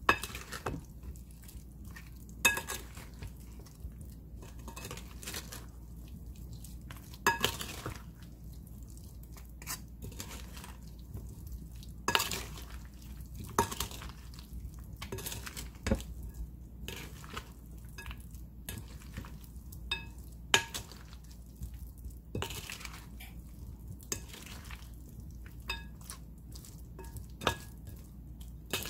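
Wooden spatula tossing potato salad with mayonnaise in a glass mixing bowl: irregular knocks and clinks of wood against glass, several with a short glassy ring.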